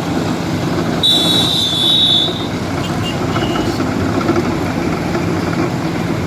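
Road milling machine running, its engine and cutter drum making a loud, steady grinding noise as it mills the bituminous road surface. About a second in, a single high-pitched tone sounds for about a second and a half.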